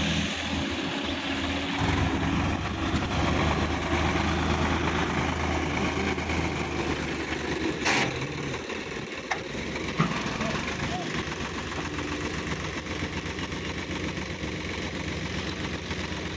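Sonalika DI-50 tractor's diesel engine running steadily at low speed while its hydraulics raise a tipping trolley, with a couple of short sharp knocks near the middle.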